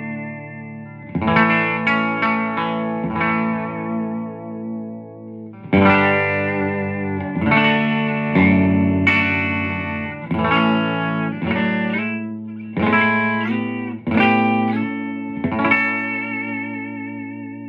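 Electric guitar, a Fender Custom Shop 1958 Jazzmaster on its bridge pickup, played through a Supro Thunderbolt MkII amplifier set to 35 W: a run of about a dozen strummed chords, each left to ring. The last chord wavers in pitch as it fades.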